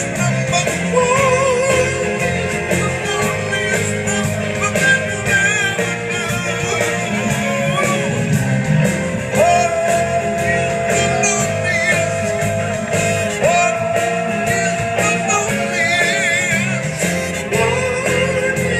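Rock band playing live, heard from among the audience: electric guitar and drums under a lead singer holding long, wavering notes.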